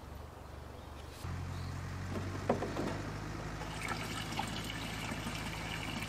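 Water running from the tap of a water barrel into a plastic watering can, filling it steadily from about a second in. A single knock sounds about halfway.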